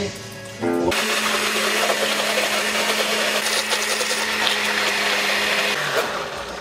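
Countertop blender running, blending pizza, a cupcake and soda. A steady motor hum sits under a loud whirring noise. It starts about a second in and cuts off about six seconds in.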